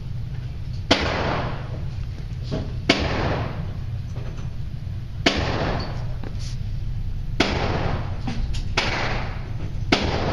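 Pistol shots in slow aimed fire: about five sharp cracks roughly two seconds apart, each trailing off in a short echo, with a few fainter shots in between near the end.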